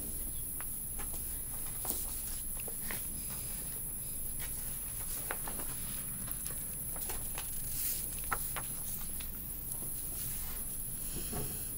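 Quiet classroom room tone: a steady low hum with scattered small taps, clicks and paper rustles from desks nearby.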